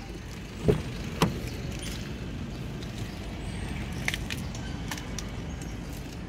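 Driver's door of a 2013 Honda Accord being opened: two sharp clicks about half a second apart roughly a second in, then a few faint clicks.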